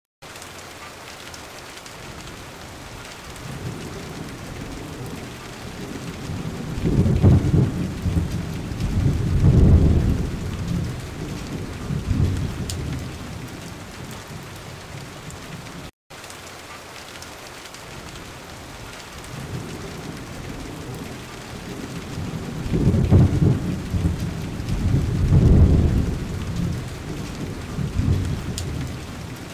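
Rain and thunder ambience track: steady rain with two rolling rumbles of thunder a few seconds apart. The same stretch loops after a brief dropout about halfway.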